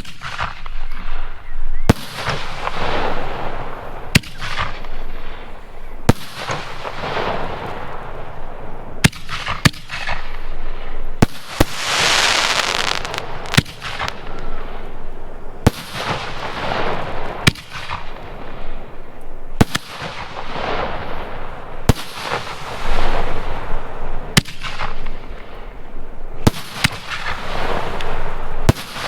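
8-inch canister firework shells going off one after another: a sharp bang roughly every two seconds, each trailing into a long rushing tail. About twelve seconds in, one burst brings a stronger, higher hiss.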